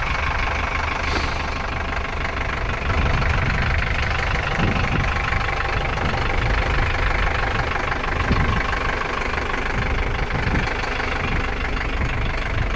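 A vehicle's engine running steadily, with a continuous rumble and noise throughout.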